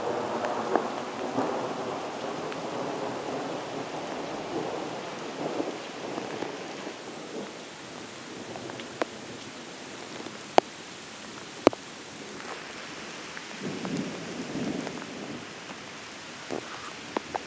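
Steady rain with distant thunder rolling at the start and swelling again about two-thirds of the way through. A few sharp clicks come near the middle.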